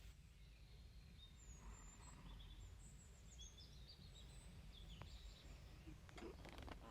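Near silence: faint birds chirping high over a low steady hum, with a few soft clicks near the end.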